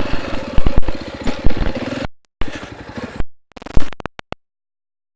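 Dirt bike engine running on a rough trail, with several sharp knocks and clatter from the bike over the ground. The sound cuts out abruptly several times, going completely silent for moments in the second half.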